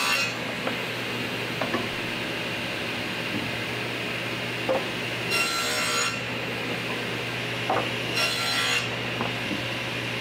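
Table saw blade cutting plywood in short incremental passes to nibble out a wide dado: two brief bursts of cutting noise about five and a half and eight and a half seconds in, over a steady hum. Light knocks and rubbing come from the plywood being slid and repositioned along the fence between passes.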